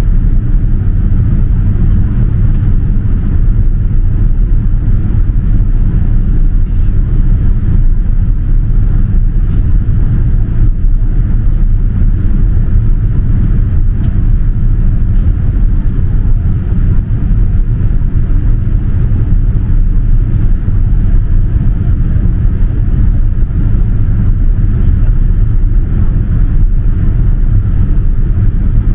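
Steady low roar of a Boeing 787-9's engines and rushing air, heard inside the passenger cabin during descent.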